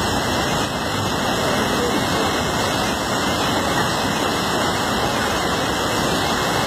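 Floodwater rushing steadily: a continuous, unbroken noise of fast-flowing water.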